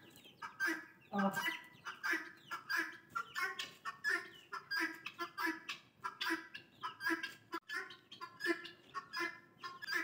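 Guineafowl calling: a continuous run of short, repeated calls, about two to three a second.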